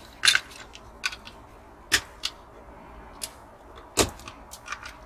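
Irregular sharp clicks and taps of a tool and small parts of a diecast toy car being worked apart, about one a second, the loudest about four seconds in.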